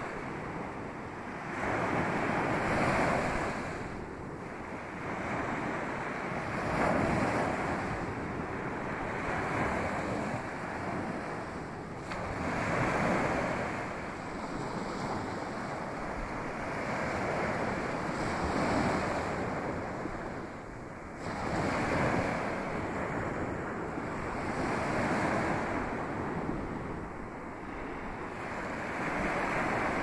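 Small waves breaking and washing up a sandy beach, the surf swelling and fading every three to four seconds.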